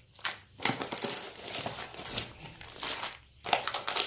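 Packaging crinkling and rustling in irregular bursts as the plant packets are handled and lifted out of the box, loudest about three and a half seconds in.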